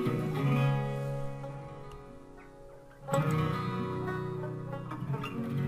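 Background music on acoustic guitar: strummed chords left to ring out, fading to near silence about two and a half seconds in before another strum starts them up again.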